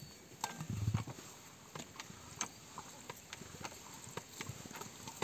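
Cast-iron hand pump being worked, its handle and linkage clicking and clanking irregularly, about two knocks a second, with a heavier low thump about a second in.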